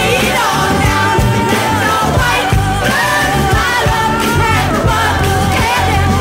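Folk-rock song with singing backed by a gospel choir over a band with a steady beat.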